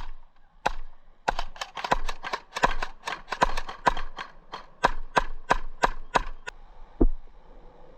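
Airsoft gun fired rapidly in semi-automatic: about twenty sharp shots at roughly four a second, then a single heavier knock about seven seconds in.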